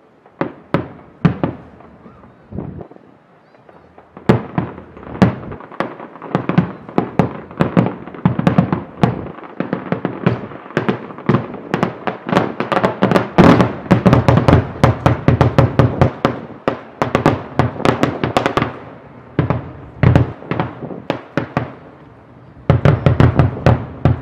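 Fireworks display: aerial shells exploding in sharp bangs. A few scattered bangs come at first, then about fifteen seconds of rapid, overlapping explosions, a brief lull, and a last quick cluster near the end.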